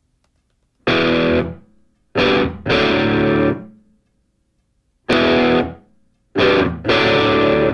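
Intro music: distorted electric guitar chords struck about six times, each ringing and fading with short silences between.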